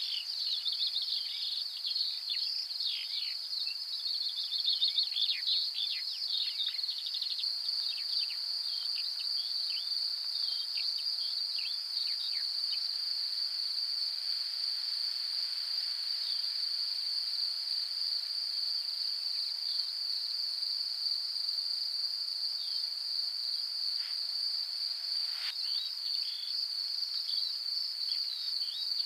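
Steady, high-pitched insect trill, cricket-like, with many short, falling bird chirps over the first dozen seconds.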